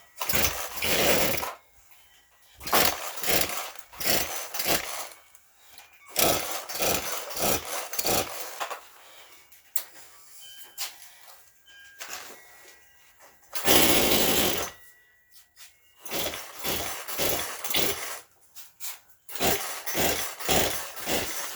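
An old Poulan chainsaw's recoil starter being yanked again and again, about eight pulls each rattling over briefly, without the engine catching and running.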